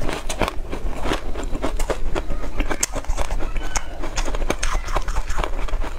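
A person chewing a soft, crumbly tartary-buckwheat snowflake pastry: a fast, irregular run of small mouth clicks and smacks.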